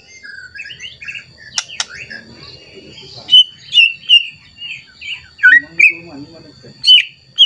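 White-rumped shama singing a varied run of short whistled and chirping notes. The song is soft and twittering at first and grows louder and clearer from about three seconds in, with a loud call near the end.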